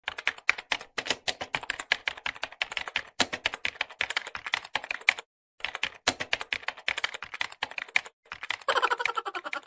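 Computer keyboard typing sound effect: rapid key clicks running on, with two short breaks about five and eight seconds in.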